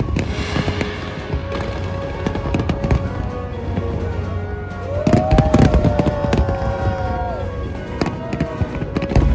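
A fireworks display going off: a steady run of sharp bangs and crackles over a low rumble, thickest and loudest about five to six seconds in.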